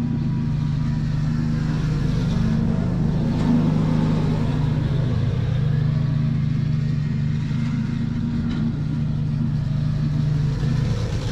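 Ariens two-stage snow blower engine running steadily.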